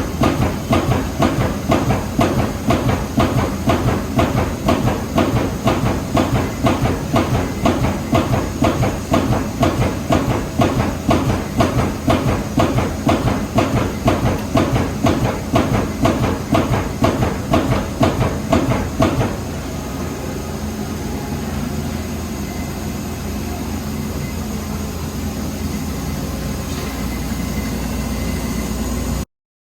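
Amada Pega 357 CNC turret punch press punching sheet metal in a rapid, even train of strokes, about two to three a second. About two-thirds of the way through the punching stops and the machine keeps running steadily, until the sound cuts off abruptly just before the end.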